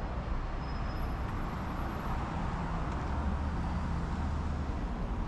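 Steady road traffic noise: a low rumble of passing cars.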